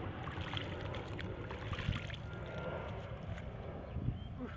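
Jet airliner flying low overhead, a steady, even rumble of engine noise.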